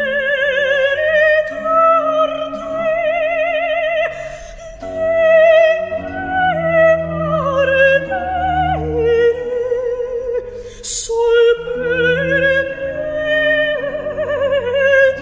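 Background music: a woman sings an operatic melody with wide vibrato over sustained low string tones.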